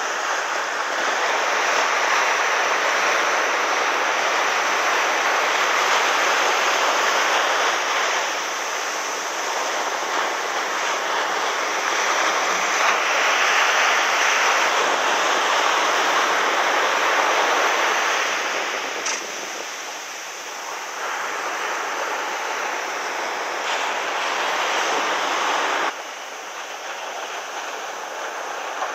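Surf on a sand beach: waves breaking and washing up the shore in a steady rush that swells and eases every several seconds, dropping suddenly near the end.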